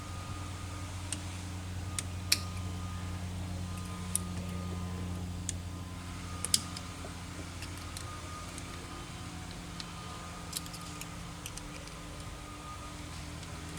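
Scattered sharp metal clicks and taps as a mechanical fuel injection pump is worked by hand with tools, freeing its stuck rack, over a steady low hum.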